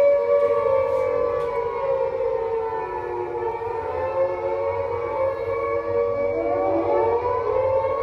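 Air raid siren wailing, a steady, full tone that sags in pitch about three seconds in and climbs back up near the end.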